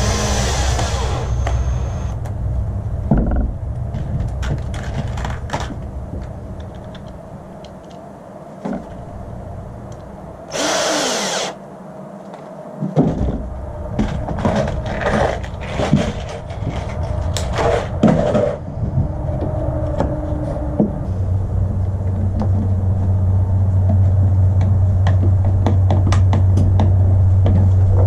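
Workshop tool work: scattered knocks and clicks of tools and parts being handled over a steady low hum, a short hiss about eleven seconds in, and a louder steady low drone of a running power tool in the last several seconds.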